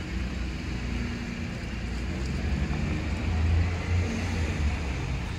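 A vehicle's engine rumbling over outdoor traffic noise, swelling to its loudest about three and a half seconds in.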